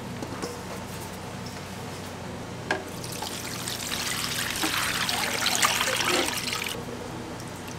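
Liquid poured from a plastic container through a metal mesh strainer, splashing and trickling onto cheese in a pan. The pour starts about three seconds in, grows louder, and cuts off suddenly near the end.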